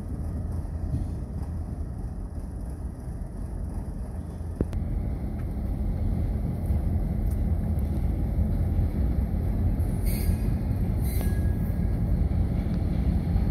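Diesel-electric locomotive engine rumbling low and steady while switching cars in a rail yard, a little louder after about five seconds. A few brief hisses come near the end.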